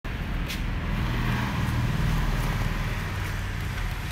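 A vehicle engine idling steadily with a low hum, with a few faint clicks over it.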